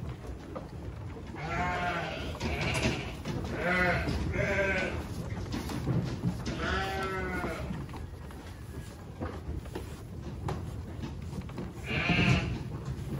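Icelandic sheep bleating about six times, in a cluster of four over the first few seconds, once more a little later, and loudest near the end. Under the calls runs a steady crackle of hay being rustled and chewed at the feeding trough.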